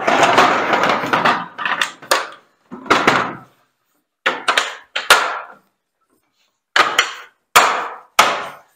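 Hard plastic Milwaukee tool cases clattering as a case is set onto a stack, then a series of sharp snaps, about one a second, as the cases' side latches are clicked shut.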